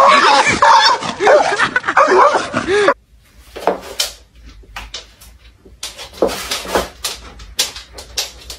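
A dog whining and yelping in a rapid, loud string of high arching cries during a scuffle with a cat, cut off suddenly about three seconds in. After that, only scattered light taps and knocks.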